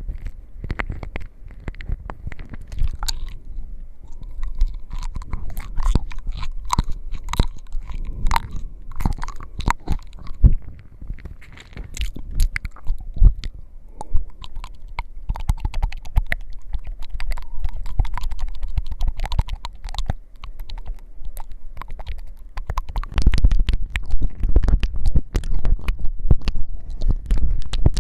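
ASMR scratching and mouth sounds close to the microphone: dense, irregular crackling clicks over a low rumble, growing louder in the last few seconds.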